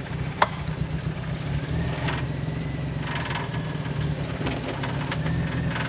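Off-road vehicle's engine running steadily at low speed as it crawls over a trail, with a sharp click about half a second in.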